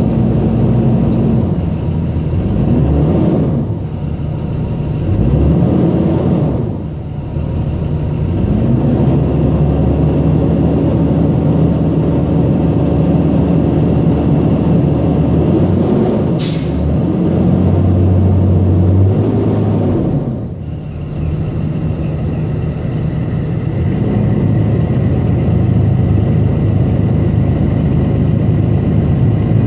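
The Cummins B6.7 inline-six turbodiesel of a 2019 Thomas Saf-T-Liner C2 school bus is idling and is revved up and back down about five times. A short, sharp hiss of compressed air from the bus's air brake system comes about 16 seconds in.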